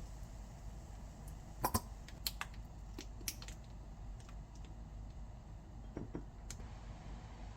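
A handful of light clicks and taps from kitchen things being handled, a cluster of them about two seconds in and two more later, over a low steady hum.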